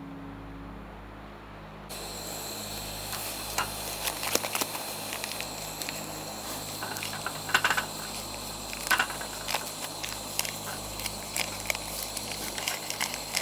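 Food sizzling and crackling in a hot pan: a hiss that starts suddenly about two seconds in, full of irregular pops and clicks, over a steady low hum.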